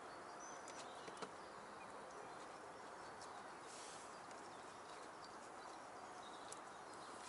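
Near silence: faint outdoor hiss with a few soft ticks and a couple of brief, faint high chirps.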